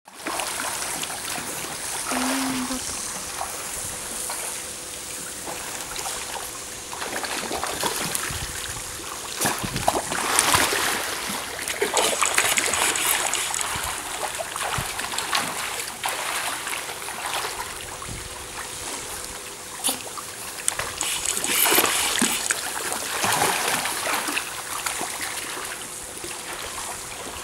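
Penguins splashing and paddling as they swim at the surface of a pool, with water churning throughout and louder bursts of splashing about ten seconds in and again near twenty-two seconds.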